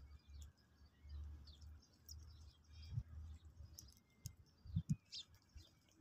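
Scattered short, high chirps from a flock of sparrows. Under them is a low rumble, with a few short low thumps, the loudest about five seconds in.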